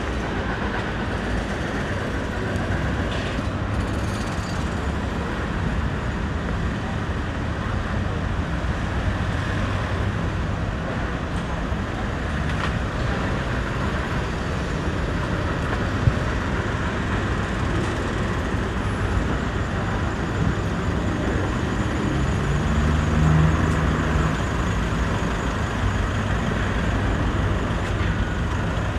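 Steady road traffic noise with a low engine rumble, the rumble swelling briefly about three-quarters of the way through; one sharp click a little past halfway.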